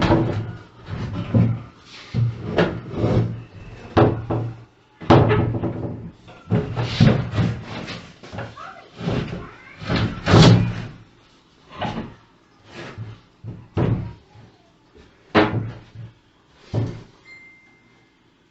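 An irregular series of sharp knocks and bangs from a door being worked into its frame, about one or two a second, thinning out and stopping near the end.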